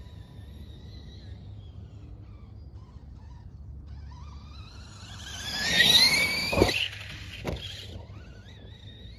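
A brushless electric RC car's motor whining, rising in pitch as it speeds up and growing loud about five seconds in. Two sharp knocks about a second apart follow as the car hits the ramp and lands, then the whine fades and a fainter rising whine starts near the end.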